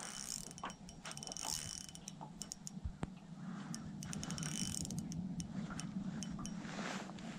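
Spinning reel being wound, its gears whirring and clicking faintly as the line is retrieved.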